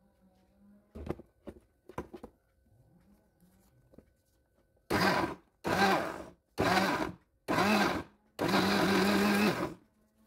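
Electric blender grinding onions, garlic, bird's eye chilies and turmeric with water into a paste: pulsed four times in short bursts, then run for just over a second. A few clicks and knocks come about one and two seconds in, before the motor starts.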